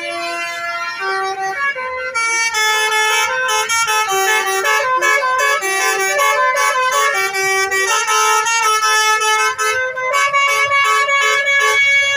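Basuri telolet bus horns playing melodies, a quick run of tooting notes stepping up and down in pitch. One horn plays at first, and from about two seconds in several tunes sound over each other in a horn battle between buses.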